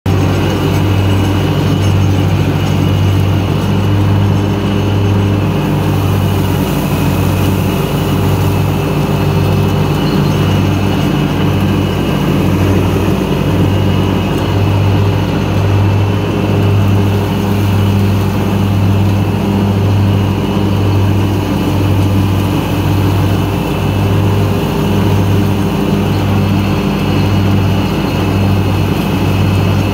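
Gravely mower's engine running steadily as it chops leaves, with a low throb pulsing about once a second.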